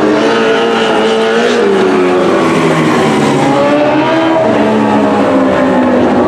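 Sprint car engines racing on a dirt oval, several at once, their pitch rising and falling as the cars come past and run through the turns.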